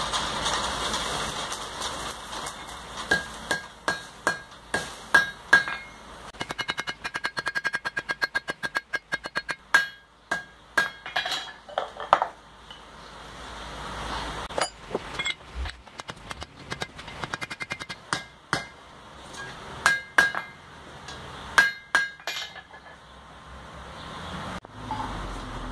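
Red-hot iron bar being struck and bent on a steel anvil, folded over for a forge weld. A rushing noise fades over the first few seconds. Then hammer and bar strikes ring on the anvil: a fast run of about four or five blows a second between about six and ten seconds in, and scattered knocks after.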